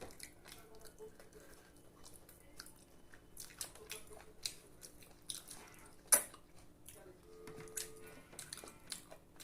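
Close-up mukbang eating sounds: chewing and biting, with many small wet mouth clicks and crunches and one sharper, louder click about six seconds in.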